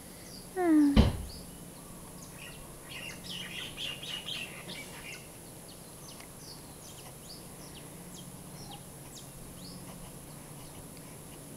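Birds chirping, with a denser run of song from about two and a half to five seconds in. About half a second in comes a brief loud pitched sound that ends in a sharp knock, the loudest thing here.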